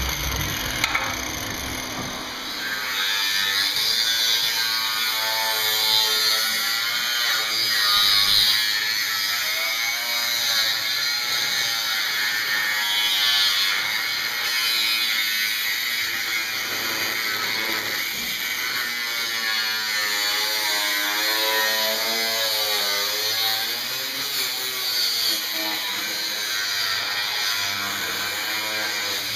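Electric angle grinder cutting through rusted sheet-steel floor panel: a steady gritty grinding hiss over a motor whine whose pitch rises and falls as the wheel bites into the metal.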